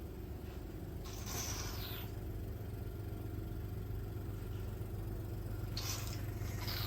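Steady low hum of a hydra dermabrasion beauty machine running, with two short hissing bursts, one about a second in and one near the end.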